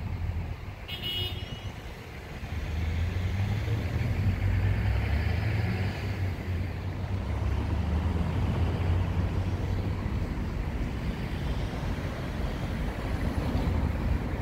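Road traffic passing: a steady low rumble that grows louder about three seconds in, with a brief click about a second in.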